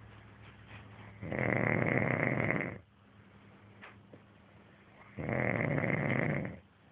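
A sleeping man snoring: two long snores, each about a second and a half, roughly four seconds apart.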